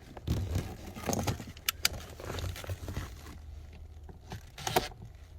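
Scattered light clicks and rattles of a screwdriver and a small Phillips screw being handled against plastic car interior trim, with a louder short knock near the end.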